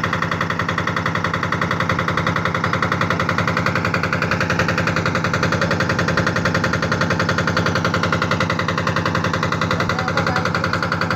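The boat's small inboard diesel engine running at a steady speed, a fast, even knocking beat that does not change.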